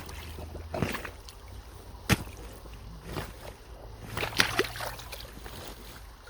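Sticks, roots and debris being pulled and broken out of a clogged culvert, with scattered sharp cracks and knocks about every second or two, and water sloshing.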